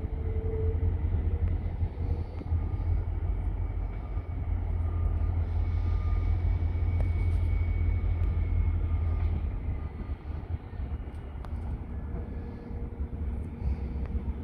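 Oscar (H set) double-deck electric multiple unit approaching slowly, with a faint steady whine and, near the end, a lower hum as it draws close. A steady low rumble is the loudest sound, easing after about ten seconds.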